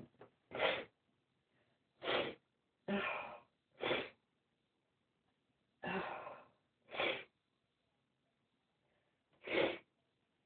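A person sneezing over and over, set off by a tickle in the nose: about seven short, sharp sneezes spread over ten seconds, some coming close together in pairs, with quiet breaths between.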